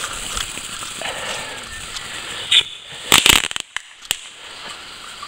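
Fireworks going off in the rain: small crackles over a steady rain hiss, then a sharp bang about two and a half seconds in, a quick cluster of loud bangs just after, and two more single cracks a second later.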